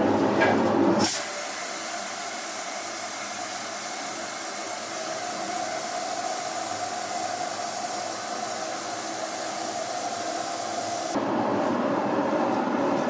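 Clanking from the steel screw press on a tractor-tyre retreading mould. About a second in, a sudden, loud, steady hiss of pressure being vented starts and runs for about ten seconds, then cuts off abruptly.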